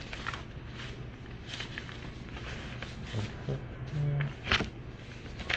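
Quiet room tone with a low steady hum, a few faint clicks and a brief low hum of a voice about four seconds in.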